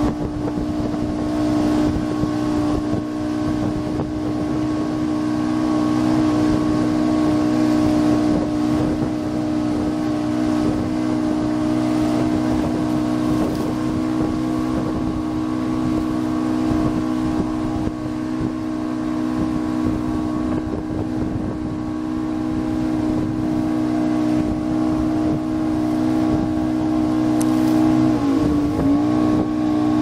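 Boat motor running steadily under way, a constant pitched hum with water rushing and wind on the microphone behind it. Near the end the engine pitch dips briefly and comes back up.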